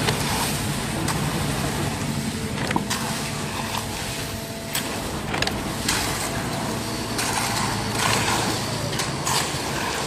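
Concrete mixer pump running steadily as it pushes concrete through its delivery hose, a continuous mechanical drone with a few sharp knocks scattered through it.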